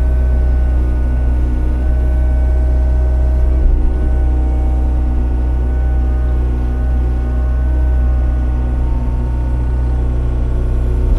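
Komatsu PC40MR-2 mini excavator's diesel engine and hydraulics working steadily as it scoops mud and swings the bucket up to load a dump truck, heard from inside the cab: a constant low hum with a whining tone above it that shifts about four seconds in.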